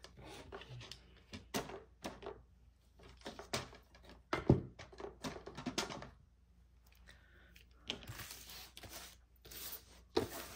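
Offcuts of clear laminated sheet rustling and clicking as they are handled and pushed together by hand, with a few light plastic knocks. The sounds come in irregular spells, pausing for about two seconds past the middle.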